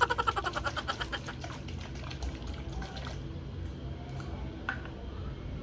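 Spray bottle of moisturizing mist shaken rapidly, the liquid sloshing in quick even strokes that are loudest at first and fade out over about three seconds. A single sharp click follows about two seconds later.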